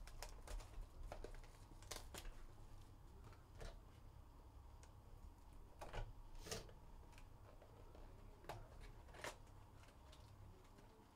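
Faint, scattered rustles and taps of a cardboard trading-card box being handled and opened by hand, the loudest a little past the middle.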